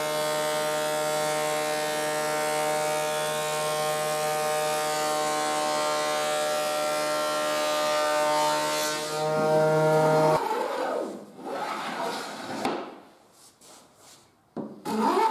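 Combination jointer-thicknesser running steady while a walnut board is fed through and planed, a pitched machine whine under a hiss of cutting. About ten seconds in it cuts off suddenly, giving way to quieter, uneven handling sounds.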